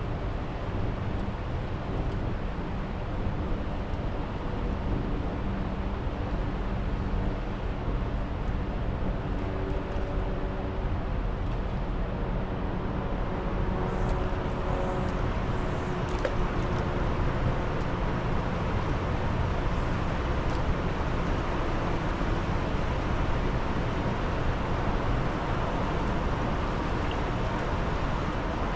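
Steady rushing of the Niagara River's fast, heavy current, with a faint low motor hum in the first half.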